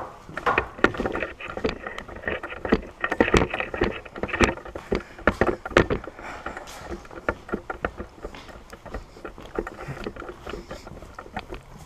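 Footsteps crunching and scraping over debris on a concrete floor: irregular sharp crunches that thin out about halfway through.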